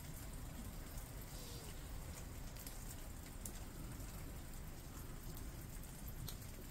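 Steady rain falling, with a few single drops ticking sharply now and then.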